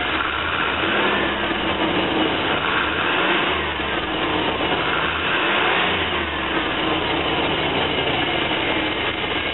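Van's throttle-body-injected engine running with rebuilt injectors just fitted, its speed rising and falling a little.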